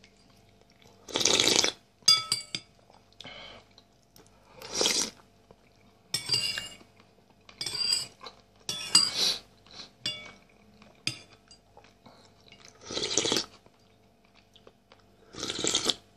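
Metal spoon clinking against a soup bowl several times, with the ringing of the dish after each tap, between about four louder, short slurps of chicken-heart soup from the spoon.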